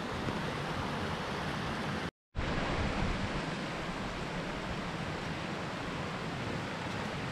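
Mountain stream rushing over rocks, a steady wash of water noise, cut off for a split second about two seconds in before it resumes.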